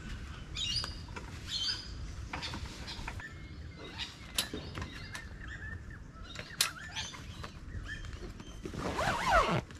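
Camping gear being packed up: scattered clicks and knocks as a folding camp chair is handled, then a louder rustle near the end as a duffel bag is lifted. Birds chirp now and then.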